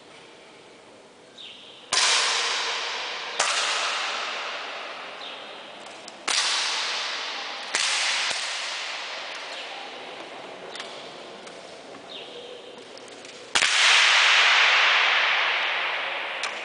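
Air rifles firing on an indoor range: five sharp cracks at uneven intervals, each followed by a long fading echo in the hall, the last and loudest near the end.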